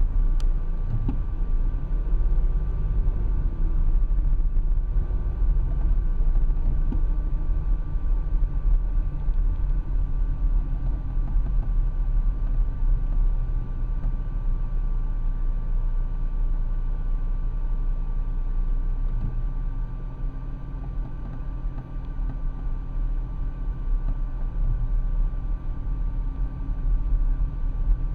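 Road traffic: cars and other vehicles driving past in a steady low rumble, with engine notes rising and falling as they go by and a brief lull about twenty seconds in.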